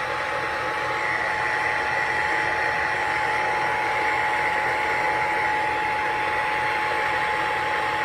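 Emergency Alert System attention tone, a steady single-pitched tone heard over a radio receiver under a constant hiss of static, cutting off near the end. It is the signal that an emergency alert is about to be read.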